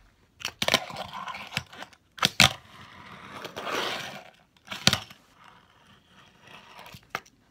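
Fingerboard on a wooden desk: several sharp clacks of the board striking the desktop, with rough rolling noise of its wheels across the wood in between.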